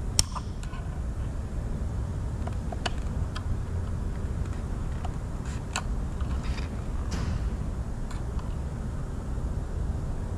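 Scattered sharp clicks and clinks of parts and tools being handled, the loudest just after the start, over a steady low rumble.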